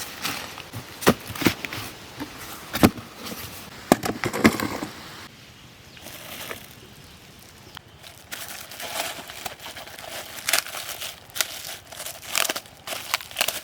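Packaging being handled during unboxing: crinkling and rustling with scattered sharp clicks and knocks, easing off for a few seconds in the middle before picking up again.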